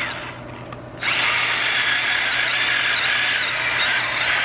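Cordless Milwaukee mini chainsaw: its motor winds down, then about a second in starts up again with a sudden high whine and runs steadily while cutting into a thick log.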